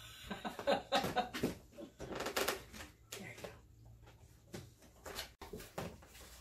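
Dogs licking and eating off a plate: irregular wet smacks and clicks, with knocks of the plate.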